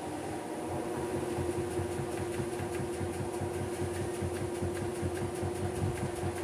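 Maytag washing machine spinning and draining: a steady motor hum with a fast rhythmic pulsing that grows a little louder about a second in. The machine is working normally now that the loose wire to its drain pump has been reconnected.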